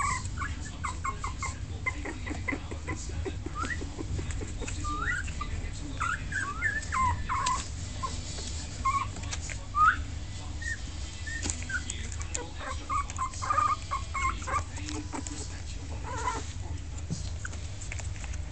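Very young Pomeranian-cross-Yorkie puppies whimpering and squeaking: many short, high-pitched squeaks, often rising in pitch, scattered throughout, with soft clicks and rustles mixed in.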